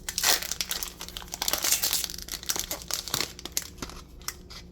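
Lorcana Shimmering Skies booster pack wrapper crinkling and tearing as it is pulled open by hand, a dense crackle that eases off near the end.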